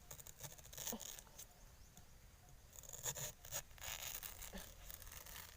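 Irregular scraping and rustling in dry leaf litter and undergrowth, with a few sharp clicks, as a wild bamboo shoot is dug and cut out of the ground. The busiest stretch comes about midway.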